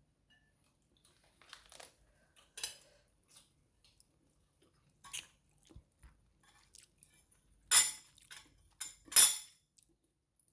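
Eating at a table: cutlery clinking and scraping on plates, with chewing, as scattered short sounds. Two louder scrapes come near the end.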